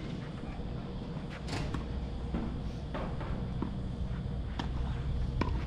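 Tennis ball knocks: racket hits and ball bounces during a doubles rally, sharp single strikes every half-second to a second, over a steady low wind rumble on the microphone.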